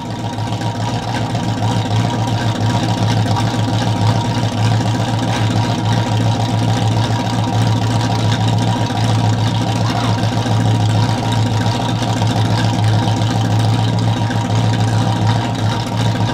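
Cammed OBS Chevrolet pickup engine idling steadily through long-tube headers and a 2½-inch exhaust with an X-pipe, shortly after a cold start.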